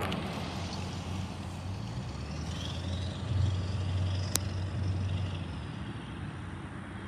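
Low, steady rumble of an Amtrak diesel passenger locomotive approaching in the distance.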